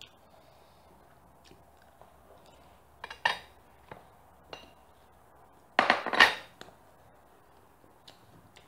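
Forks clinking and scraping on ceramic plates as the last noodles are eaten, with louder clatters of dishes about three seconds in and again about six seconds in.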